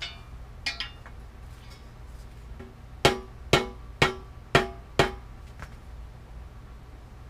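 A hammer striking a metal part on a bicycle frame five times, about two blows a second, each blow ringing briefly. A few lighter clinks of metal parts being handled come in the first second.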